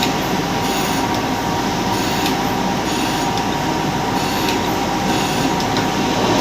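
Grinder machine running steadily under power, a constant machine noise with a steady whine.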